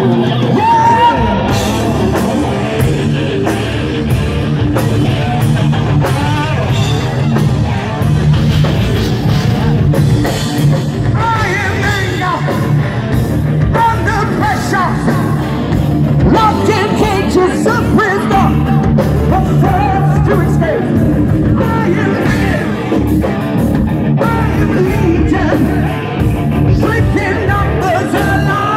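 Live heavy metal band playing loud, with distorted electric guitar and a singer's voice coming in phrases over it, heard from within the crowd at an outdoor show.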